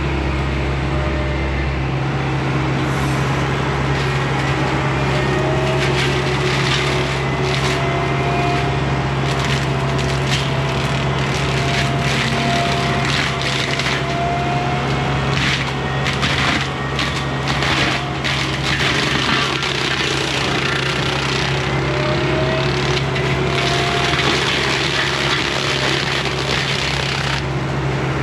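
John Deere 60P mini excavator running steadily under load, with a wavering hydraulic whine. From about nine seconds in, brush and wood crack and snap repeatedly as the forestry mulcher gets to work.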